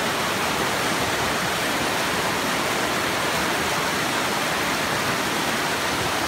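A rain-swollen creek rushing steadily over rocks and whitewater rapids.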